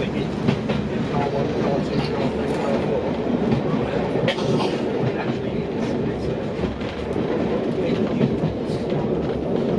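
Derby Lightweight diesel railcar running, heard from its rear cab, with a passing train's coaches going by on the next track and a clatter of wheels over rail joints.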